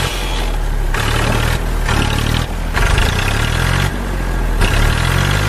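Tractor engine running, a low pitched note that shifts in steps every second or so; it is a sound effect laid over toy tractors, which make no engine sound of their own.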